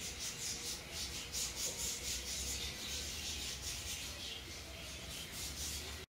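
Irregular dry scratching and rubbing, a rapid uneven run of short scrapes over a low rumble, cutting off abruptly at the end.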